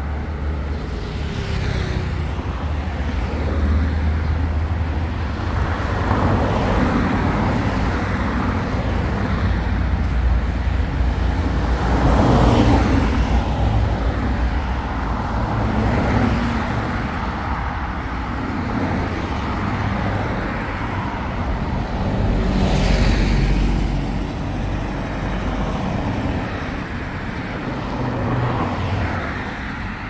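Road traffic: cars passing close by one after another over a steady low engine rumble, each one swelling up and fading away, the loudest about twelve and twenty-three seconds in.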